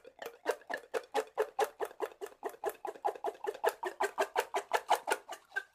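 Sound effect of an animated outro title card: a rapid, evenly spaced run of short clicking pulses, about seven a second.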